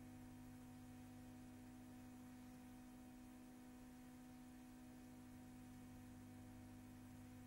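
Near silence: a faint, steady low hum and hiss with no other sound.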